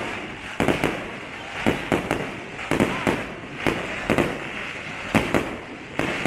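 Aerial fireworks bursting in quick succession: sharp bangs about two to three a second at uneven spacing, over a continuous noise of crackling and rumble between them.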